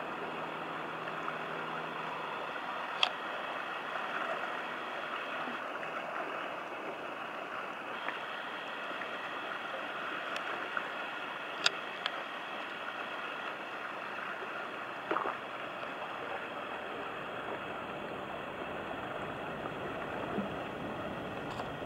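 Steady rush and lapping of river water, with the low hum of a passing inland tanker barge's engine faint during the first few seconds. A few sharp clicks break through, one about three seconds in and two more in the middle.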